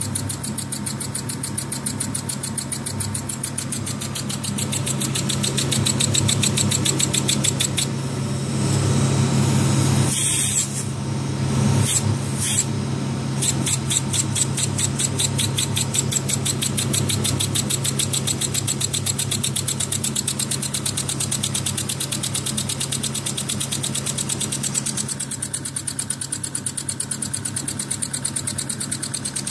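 Small homemade model steam engine running fast, with a rapid, even beat of exhaust puffs. Partway through, the beat blurs into a hiss for a few seconds, then the even beat comes back.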